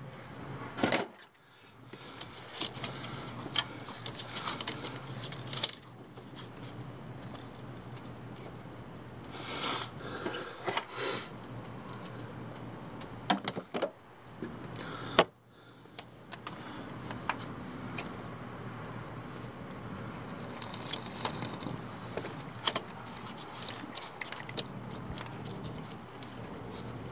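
Hand tools clinking and rattling on and off, with scattered sharp clicks and knocks, over a steady low hum.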